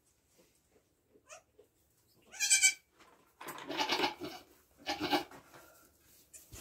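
Nigerian Dwarf goats bleating. A short high bleat comes about a second in, a loud bleat at about two and a half seconds, then two longer bleats around four and five seconds.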